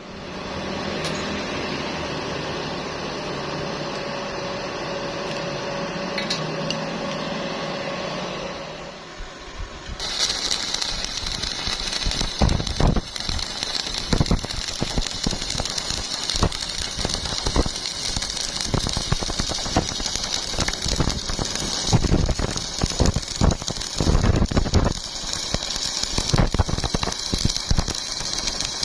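A steady machine hum with a held tone. After an abrupt cut about ten seconds in, it gives way to the dense, irregular crackle and hiss of an electric arc welding rusty steel plate.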